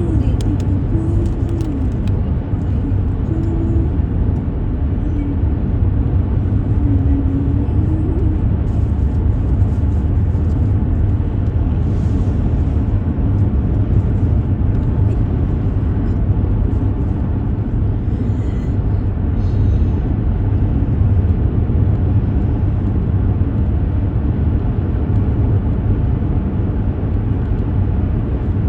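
Steady low rumble of a car driving: engine and tyre road noise at an even level throughout.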